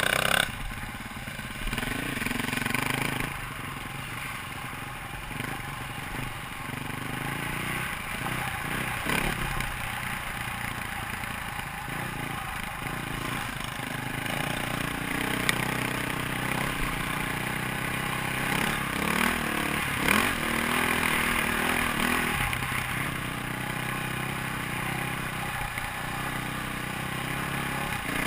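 KTM dirt bike engine running, its pitch rising and falling repeatedly as the throttle is opened and closed over a rough trail, under a steady rushing noise.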